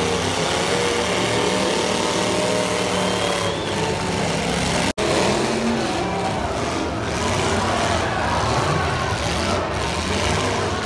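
Several demolition derby cars' engines revving and running together, their pitches shifting up and down. The sound cuts out for an instant about five seconds in.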